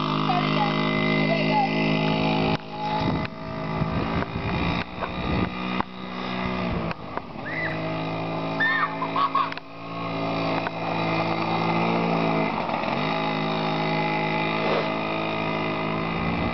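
Small mini dirt bike engine running steadily, its pitch dipping and climbing back several times as the throttle is eased off and reopened.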